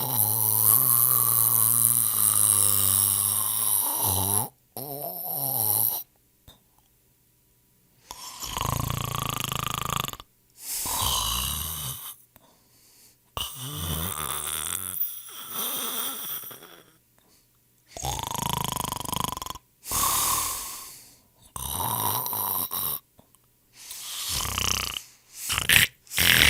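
People snoring: one long snore with a steady low pitch lasting about four seconds, then after a short pause a run of shorter snores roughly every two seconds.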